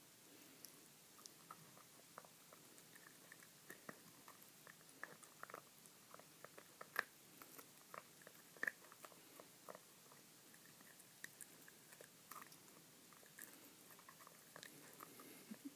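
Small dog chewing and biting pig's-trotter meat held in a person's fingers: faint, irregular clicks and smacks of the jaws and teeth, a few a second, with a couple of sharper bites about halfway through.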